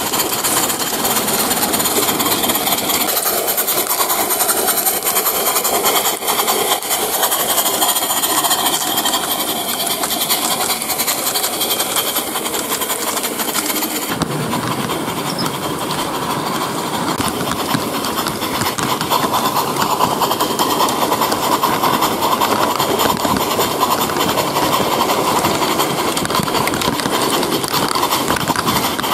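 Live-steam G-scale model of the Harz 2-10-2T locomotive 99 222 under steam, a steady hiss of steam with fast, rapid exhaust beats. The sound shifts about halfway through, becoming fuller and heavier.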